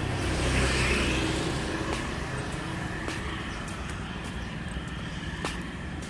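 Street traffic: a motor vehicle's engine and tyre noise swells close by in the first second or so and then slowly fades as it moves away. Behind it runs a steady low hum of more distant traffic.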